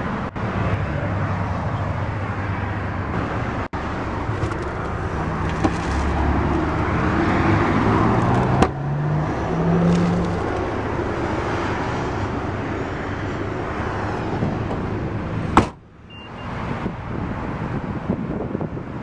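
Steady road traffic noise from cars passing on a nearby road, with a low engine hum swelling near the middle. The sound cuts out briefly a few times.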